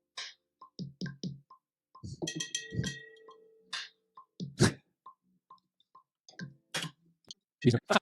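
A drum-machine pattern played from a bell sample: short, evenly spaced clicks about two and a half times a second with low thumps under them, and a bell hit ringing out for about a second, about two seconds in.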